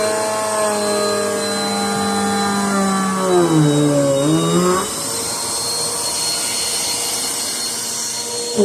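Vacuum cleaner running with a steady whine. About three seconds in, its pitch sags and climbs back up, and from about five seconds on the whine gives way to a plainer rush of air.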